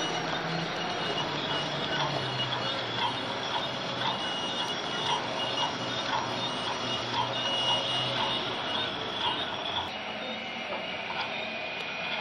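Model railway train running along the layout's track: a steady motor hum with light clicks about twice a second as the wheels pass rail joints, the hum fading about three-quarters of the way through.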